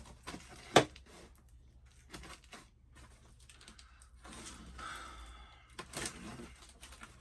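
Cardboard box being opened by hand: packing tape tearing and cardboard rustling, with scattered clicks and one sharp knock just under a second in.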